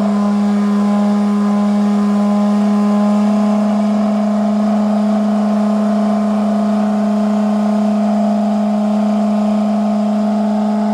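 Electric sander running steadily, a constant motor hum at one unchanging pitch.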